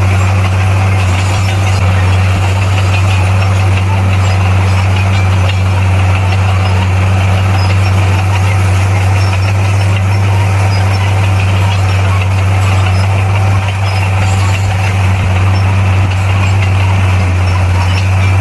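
Bulldozer's diesel engine running with a loud, steady low drone.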